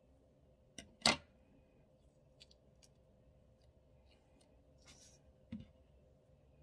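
Small craft scissors clicking on a tabletop: a sharp snip about a second in, then a few light ticks. Near the end there is a brief paper rustle and a soft thump as the planner is shifted.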